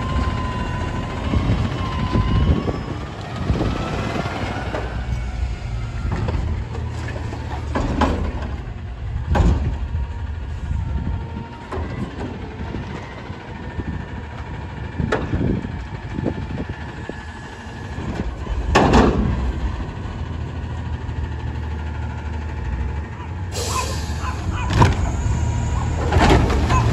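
Natural-gas McNeilus front-loader garbage truck working at the curb: the engine runs steadily under a wavering hydraulic whine as the front arms lift the cart container over the cab to dump it. Sharp metal bangs from the container and arms come now and then, and a hiss of air starts near the end.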